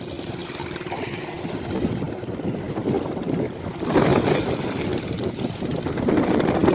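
Wind buffeting the microphone in gusts, getting louder about four seconds in and again near the end, over small waves washing onto a sandy beach.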